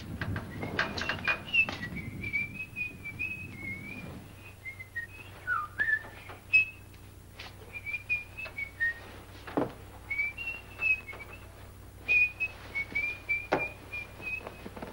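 A person whistling a wandering tune in short phrases, with bedclothes rustling at first and a few soft knocks along the way.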